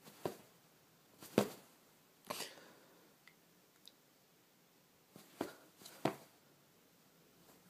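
Short, scratchy rustles on a quilted comforter, five in all: three spread over the first few seconds, then two about half a second apart near six seconds in, the last as a cat swats its clawed paw over the fabric.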